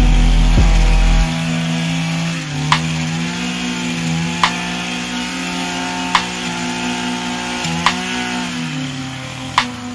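Echo pole hedge trimmer's engine running at working speed, its pitch rising about two and a half seconds in and dropping away near the end. Hip-hop music plays over it: heavy bass in the first second and a sharp clap about every second and a half.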